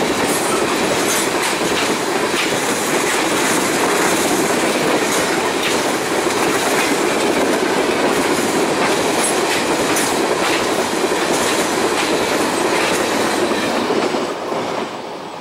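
Freight train of tank cars rolling past: a steady rumble of wheels on rail with frequent clicks of the wheels, which drops away about fourteen seconds in as the last car passes.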